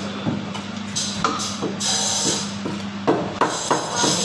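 Heavy steel cleaver cutting fish on a wooden chopping block: a run of sharp knocks, several in quick succession near the end, with short scraping strokes of the blade between them.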